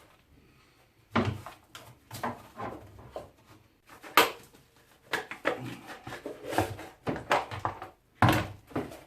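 Hands and tools working the plastic housing of an electric strimmer apart: irregular knocks, scrapes and rattles of plastic parts, with a sharp knock about four seconds in and another near the end.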